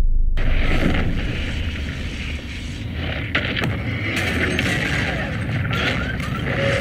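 Movie sound effects of an explosion tearing through city streets: a dense rumble of fire and falling debris that starts suddenly just after a fading boom, with sharp crashes about three seconds in and again near the end.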